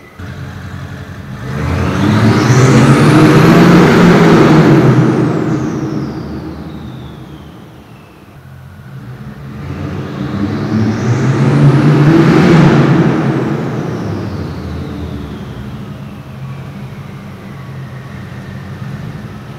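2003 Audi RS6's twin-turbo V8 with its mufflers removed, revved hard twice inside a concrete parking garage. Each burst swells up over a couple of seconds and dies away, very loud.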